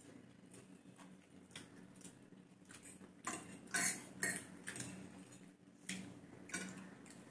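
Forks clinking and scraping against plates of noodles as people eat: a scatter of irregular sharp clicks, busiest and loudest about three to four and a half seconds in.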